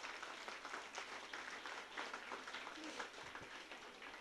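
Audience applauding, faint clapping from many hands that thins out and fades near the end.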